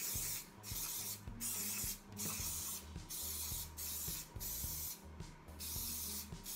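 Aerosol olive oil cooking spray hissing from the can in a run of short bursts, about one a second, greasing the cups of a muffin tin.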